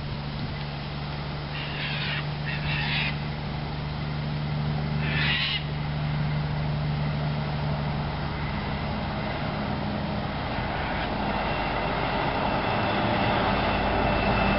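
Diesel engine of an approaching road-train truck, a steady low drone that grows louder and fuller over the last few seconds. Three short harsh bird calls sound in the first six seconds.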